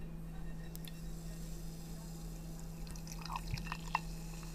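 A strongly carbonated soft drink is poured from a plastic bottle into a glass, with faint trickling and dripping. There are a few light clicks and taps about three to four seconds in, and a steady low hum underneath.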